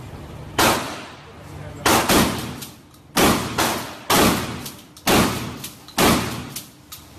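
Handgun fired repeatedly in an indoor shooting range: about six loud shots roughly a second apart, each a sharp crack with an echoing tail, with a few fainter shots in between.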